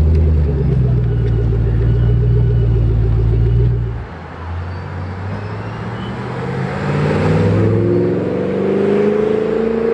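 Shelby Mustang V8 idling with a steady, deep exhaust note close behind its tailpipes. After a cut about four seconds in, the car pulls away, and its engine revs up with a rising pitch, loudest near the end.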